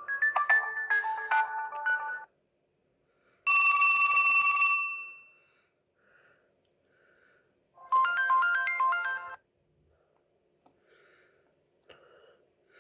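LG T370 mobile phone playing short ringtone snippets through its small speaker. A quick melody of changing notes stops abruptly after about two seconds, then a single chime sounds and fades. Near the eight-second mark a rapid electronic melody plays for about a second and a half.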